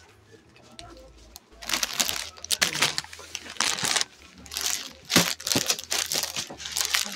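Plastic packaging of suit sets crinkling and rustling in irregular bursts as the packets are handled and moved, starting about a second and a half in, with a few sharper crackles about five seconds in.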